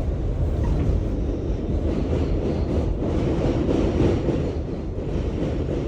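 New York City subway train running on the rails, a steady low rumble.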